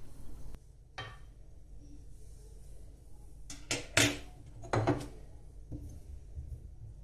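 Running tap water stops about half a second in, followed by a few sharp knocks and clatters of hard objects being handled, the loudest about four and five seconds in.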